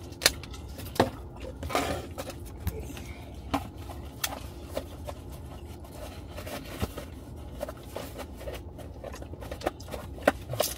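Eating sounds: scattered light clicks and taps of a fork against a plastic takeout bowl and a foil tray being handled, over a low steady rumble.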